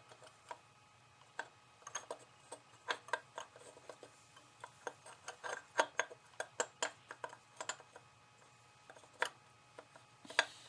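Irregular light clicks and taps of small parts being handled while a part with an O-ring is worked into place by hand on a motorcycle, with a faint steady low hum underneath.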